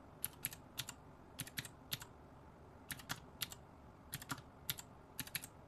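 Calculator keys being tapped in a string of quick, uneven clicks, some single and some in short runs, while a sum is keyed in.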